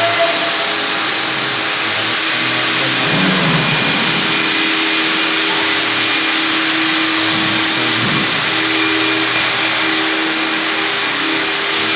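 Electric single-disc floor polishing machines running steadily on a wet marble floor: an even motor whir with a few steady humming tones.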